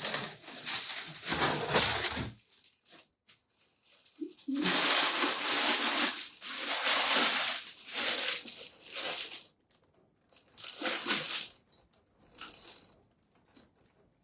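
Packaging rustling and crinkling in several bursts as it is handled and pulled apart.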